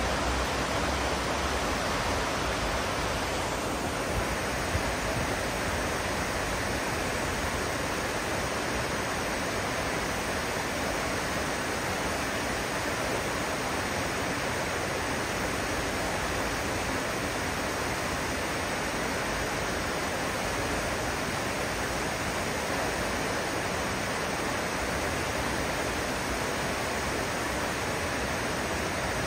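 Steady rushing of river water flowing over rocks, an even hiss that holds unchanged throughout.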